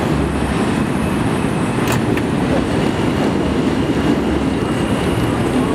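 Kawasaki R160B subway train standing at an elevated platform, giving a steady rumbling noise. A sharp click comes about two seconds in as its doors open.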